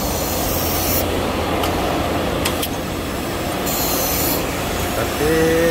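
Compressed-air vacuum glass lifter running: a steady rush of air over a low hum, with two short bursts of sharper hiss, one at the start and one about four seconds in.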